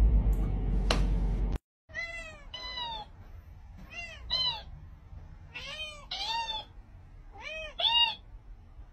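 A cat meowing at a talking cactus toy that repeats the meows back, in four quick back-and-forth pairs of short meows. Before that, a loud steady low rumble with a sharp click, which stops abruptly about a second and a half in.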